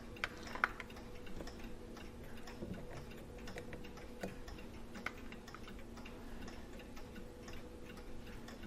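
Light, irregular metallic clicks and taps as the small brass wheels and parts of a disassembled Hermle clock movement are handled and set down, over a faint steady hum.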